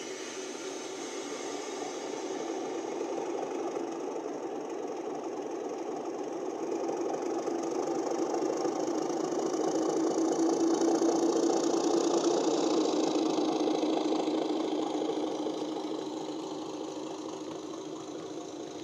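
Model Class 31 diesel locomotive's ESU Hifi sound decoder playing its diesel engine sound through the loco's small speaker, a steady engine drone under way. It grows louder as the loco comes close, peaks about ten seconds in, and fades as it moves away.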